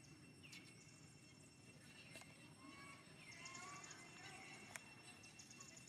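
Faint outdoor animal calls: repeated high chirping trills and short sliding squeaks, mostly in the second half, over a low background hiss, with one sharp click near the end.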